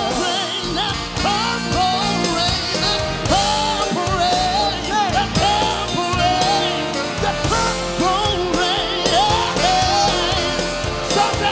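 Live pop-rock band playing with singers: a sung lead melody over a steady drum-kit beat.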